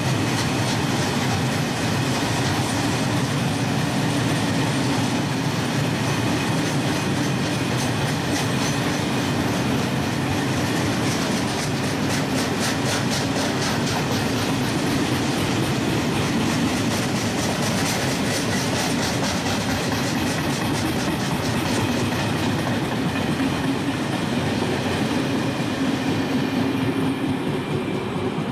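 Loaded Finnish timber freight wagons rolling slowly past: a steady rumble with wheels clacking over the rails and a faint high squeal. The high-pitched clatter fades near the end.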